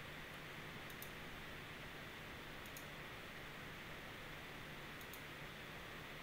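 Computer mouse clicking three times, about two seconds apart, each a faint quick double tick, over steady microphone hiss.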